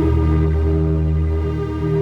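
Soma Labs Lyra-8 analog drone synthesizer sounding a dense, sustained low drone: several steady tones layered, with a slight pulsing in the low end.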